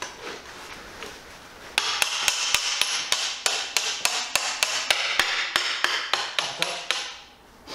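Hand hammer tapping the rear axle through the wheel hub and swingarm of a Stomp pit bike, in quick even metal taps about four a second that start about two seconds in and stop near the end.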